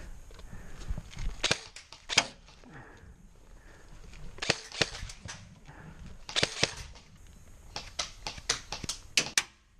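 Airsoft guns firing, sharp snapping shots that come singly and in quick clusters of two to four, a dozen or so in all.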